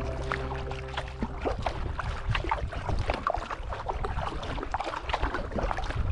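Sea kayak under way on calm sea: an irregular patter of water splashing and dripping around the paddle and hull.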